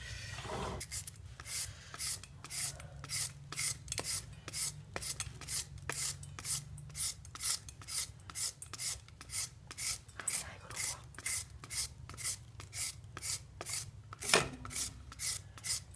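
Kitchen knife chopping vegetables on a cutting board: a steady rhythm of sharp knocks, about three a second, as they are cut into small even pieces, with one harder knock near the end.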